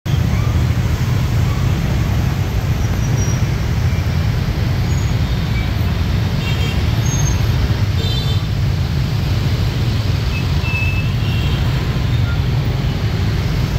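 Dense scooter and motorbike traffic in a jam: a steady low engine drone from many small motorbikes idling and creeping, with a few brief high-pitched sounds around the middle.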